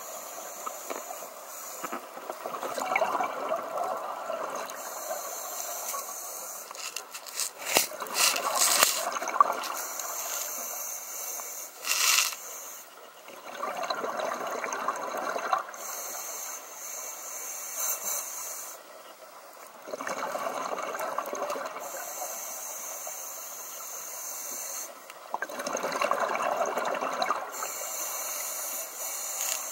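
Scuba regulator breathing underwater, heard from the diver's own mask: a hiss on each inhale alternating with a rush of exhaled bubbles, about one breath every five to six seconds. A few sharp clicks about eight seconds in.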